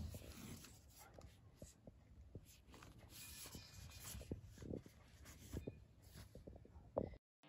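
Faint handling noise of a cardboard smartphone box being turned over in the hands and set down on carpet: a few soft taps and scrapes against near silence.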